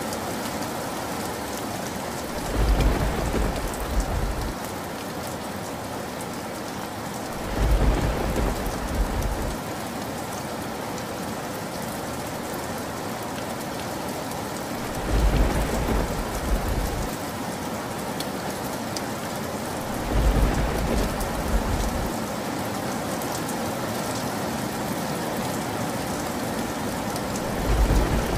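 Steady rain with thunder rumbling five times, each low roll lasting about two seconds, the last one starting near the end.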